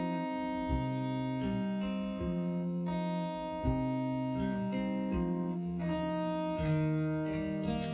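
Background instrumental music: a melody of held, plucked or keyboard-like notes that change every half second or so.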